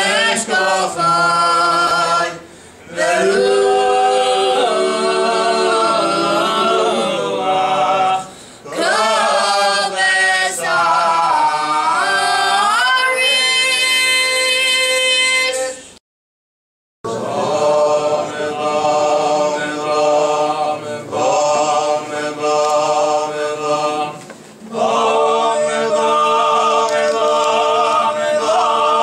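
Men singing Selichot prayers unaccompanied, in long melodic phrases with sliding pitch and short pauses between them. The sound cuts out completely for about a second midway.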